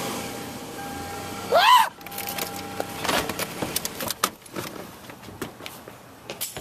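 A steady motor-like hum, then a short, loud squeal that rises and falls in pitch and cuts off abruptly. Scattered clicks and knocks follow.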